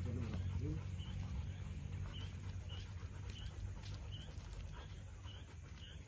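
Malinois panting as it walks at heel, with a short whine in the first second. A steady low rumble lies underneath, and a small high chirp repeats about twice a second.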